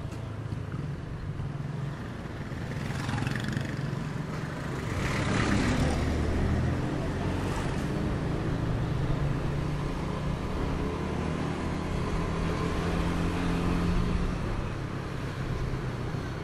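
Motorbike engine running while riding, with steady road and wind noise; the noise swells about five seconds in.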